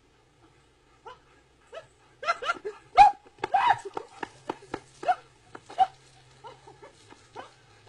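A dog barking and yapping in quick short bursts, starting about two seconds in and loudest about a second later, then fewer and fainter barks.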